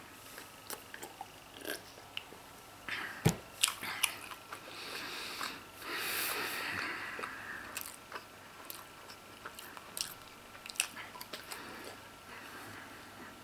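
A man biting and chewing a mouthful of Emmentaler cheese close to the microphone: soft, wet mouth clicks and smacks, with one sharper click about three seconds in.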